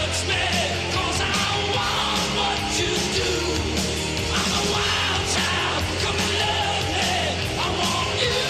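Rock music with a singer's voice over a steady bass, playing continuously.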